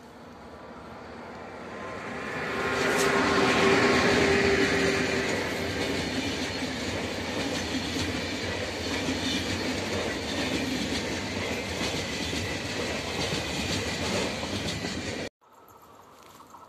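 A railjet express hauled by a red ÖBB electric locomotive passing at speed: a rush that swells as the locomotive comes by, with a steady hum at its loudest, then the coaches' wheels clattering on the rails. The sound cuts off abruptly near the end.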